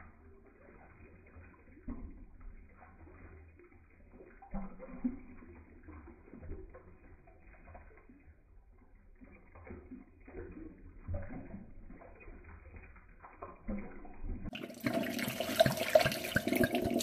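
Water glugging and gurgling out of an upside-down glass wine bottle into a stainless-steel sink drain, slowed down so that it sounds low and muffled, with irregular gurgles. About 14.5 seconds in, the sound switches to normal speed and becomes louder: a clear, splashing stream of water pouring into the drain.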